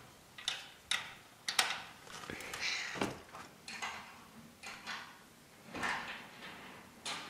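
Irregular sharp metallic clicks and taps, with short scraping sounds between them, from hands and a small tool working the turnbuckles and steel cables of a cable railing as the cables are tensioned and checked.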